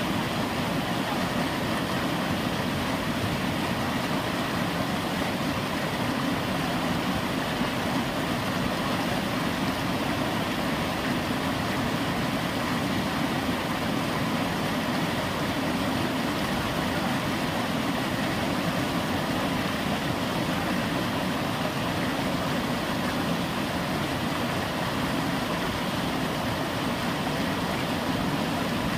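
Fast-flowing Teesta river water rushing in a steady, unbroken wash around people wading through the current.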